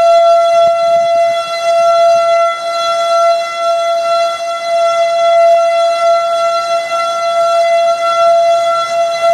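Outdoor tornado warning siren sounding a steady, unwavering tone, loud and rising and falling a little in loudness. It signals a tornado warning as the storm approaches.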